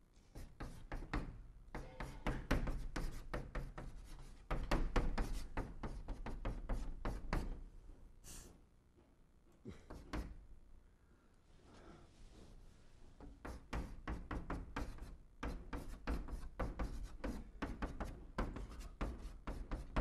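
Chalk tapping and scraping on a blackboard as characters are written: a quick run of short knocks and strokes that thins out a little before halfway, then picks up again.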